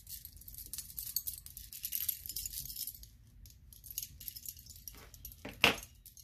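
Beaded bracelets with small metal charms clinking and jangling as they are handled, busiest in the first half, with one louder knock near the end.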